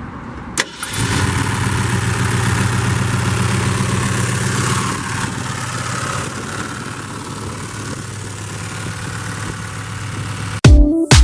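V8 engine idling steadily under an open hood. It is a little louder for the first few seconds and settles slightly quieter from about halfway. Background music cuts in near the end.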